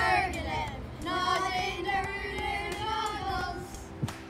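Several children's voices singing together, then about four seconds in a single sharp thump as a foot stamps on a stomp rocket's air pad, forcing air up the tube to launch the foam rocket.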